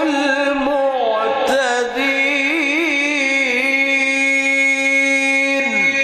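Male Quran reciter chanting in melodic mujawwad style, drawing out one long ornamented note with a rapid wavering trill, then holding it steady before it falls away near the end into the word 'al-mu'tadin'.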